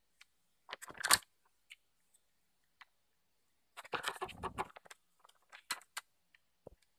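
Hard plastic toy pieces clicking and knocking together as a small child handles them, with a loud cluster of clatter about a second in and a longer stretch of knocking and rubbing around four seconds in, then a few lighter clicks.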